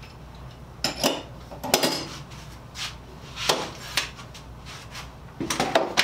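A metal saw vise being handled on a wooden workbench as it is unclamped and set down. A handful of separate clunks and clatters, metal knocking against wood.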